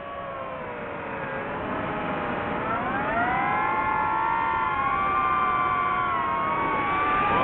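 DJI FPV drone's motors and propellers whining in several tones at once. The pitch dips low in the first two seconds, then climbs about three seconds in and holds high as the throttle comes back up.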